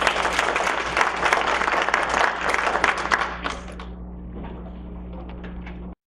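Audience applauding: dense clapping that thins after about three and a half seconds to a quieter patter of scattered claps, then cuts off abruptly near the end. A low steady hum runs underneath.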